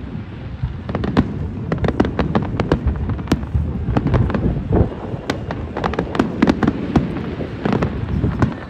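Aerial fireworks display going off in rapid succession: many sharp cracks and crackles, several a second, over a continuous low rumble of booming shells.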